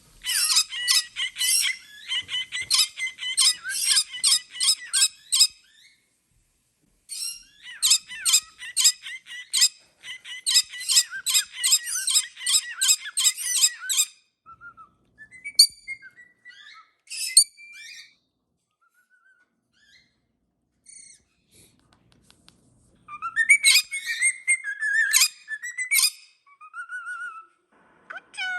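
Pet parrots beeping and chirping in a fast rhythmic series of sharp, high calls, about three a second, in two long runs, then scattered single calls and short whistled glides, then another burst of chirps near the end.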